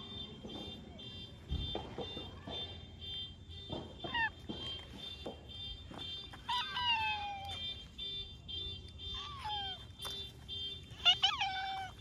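Orange tabby cat meowing about four times, each meow falling in pitch, the loudest near the end.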